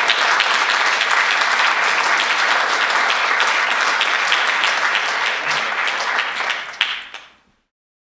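An audience applauding, a dense patter of many hands clapping, fading out about seven seconds in.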